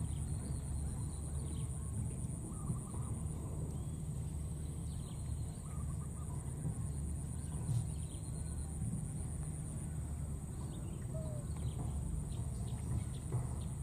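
Outdoor background noise: a steady low rumble, a steady high-pitched hum, and faint short calls or squeaks scattered through.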